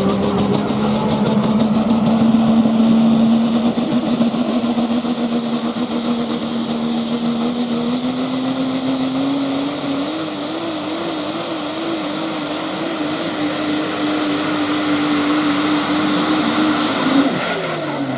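Super stock diesel 4x4 pulling truck at full throttle, dragging a weight-transfer sled. The engine note climbs slowly and wavers for a few seconds midway, with a high whistle above it for a while. Near the end the engine lets off and the note drops away sharply.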